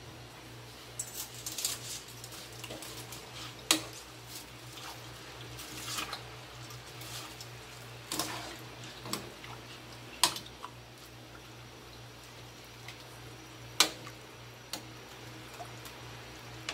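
A cooking utensil knocking against a metal pot while dry spaghetti is pushed down into hot water and stirred, with the water bubbling faintly. The knocks come irregularly, the sharpest about four, ten and fourteen seconds in, over a steady low hum.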